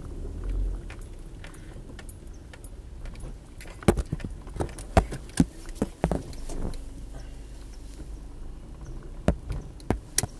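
Inside a moving car: a low steady engine and road hum, broken about four seconds in by a run of sharp, irregular clicks and knocks lasting a couple of seconds, and by a shorter run near the end.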